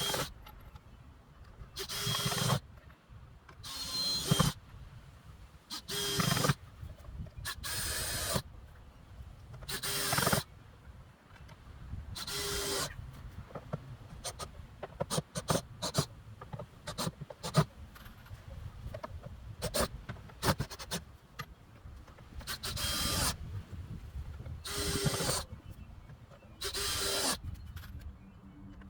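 A woodworking tool working on wood in short strokes, about one every two seconds, each lasting about half a second. A run of light clicks and knocks fills a stretch in the middle.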